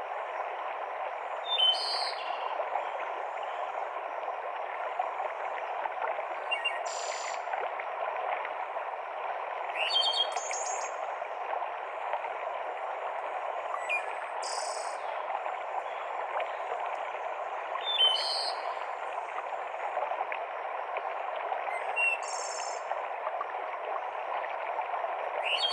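Steady rush of a mountain stream cascading through forest, with birds singing over it in short high calls and trills about every four seconds.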